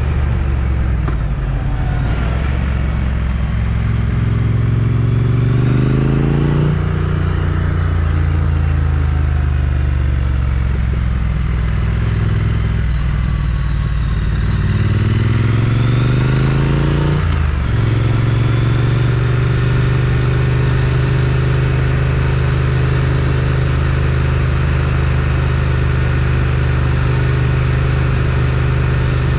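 Triumph Street Twin's parallel-twin engine through its stock exhaust, under way. It accelerates with the pitch climbing, drops sharply at an upshift about a quarter of the way in, climbs again, and drops at a second upshift just past halfway. It then settles into a steady cruise.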